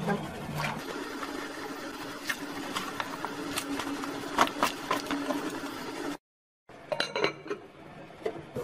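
Sliced fresh bamboo shoots dropped by hand into a glass pot of hot water on a gas stove: a run of irregular clicks and small splashes over a steady hum. A few glass clinks near the end as the glass lid goes on.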